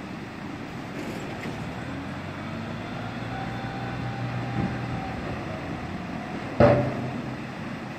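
Rear-dump truck's engine running harder as the bed tips up and a load of snow slides off into the harbour water. About six and a half seconds in comes a single loud bang with a short ring.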